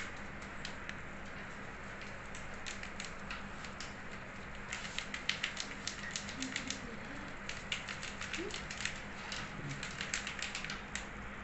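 Irregular quick clicks and small pops at the water of a small aquarium, sparse at first and coming in dense clusters over the second half, over a steady low hum.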